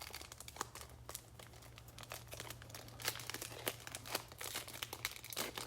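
Plastic trading-card pack wrapper being torn open and crinkled by hand: a scatter of small crackles, over a faint steady low hum.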